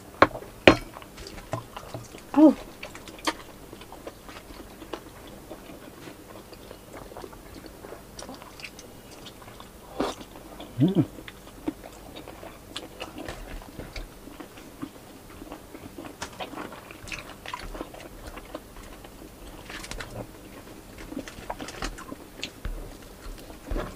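Close-miked eating: chewing and lip smacking on squid adobo and stuffed tilapia eaten by hand, with a few louder smacks near the start and around the middle.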